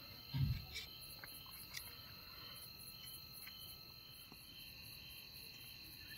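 Crickets chirring steadily at night, a high pulsing trill. A dull thump about half a second in, then a few faint clicks of a knife against a metal skewer as grilled chicken is pushed off it.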